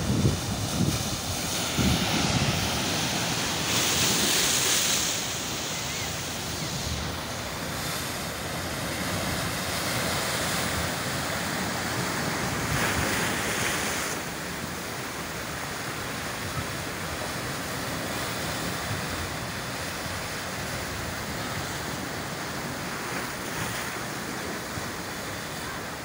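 Ocean surf breaking and foaming over a rocky shore: a continuous rushing that swells louder twice, a few seconds in and again about halfway through. Wind buffets the microphone in low rumbles at the start.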